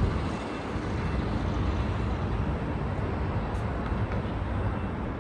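Steady outdoor city background noise: a low rumble and hiss of distant traffic.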